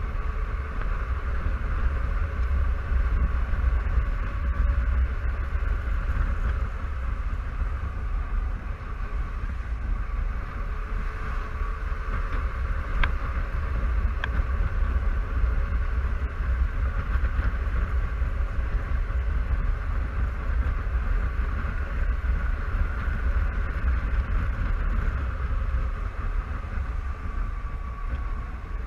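Honda Silverwing 600 maxi-scooter's parallel-twin engine droning steadily while cruising, under a heavy low rumble of wind on the camera microphone. Two short ticks sound about halfway through.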